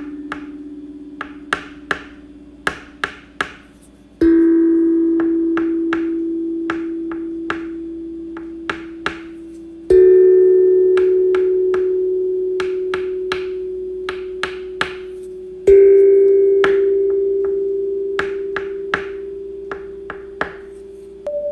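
Bell-like chime tones, a new one struck about every six seconds, each a step higher in pitch than the last and slowly fading. Short sharp clicks fall between them, about ten to each tone.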